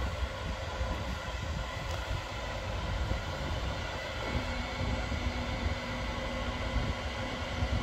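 Norwegian El 18 electric locomotive humming: several steady whining tones over a low rumble, with a further, lower steady tone setting in about four seconds in.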